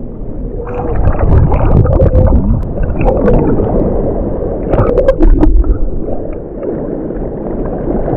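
Sea water sloshing and gurgling around an action camera held half in the water as a swimmer strokes forward, muffled, with a few sharp splashes about five seconds in.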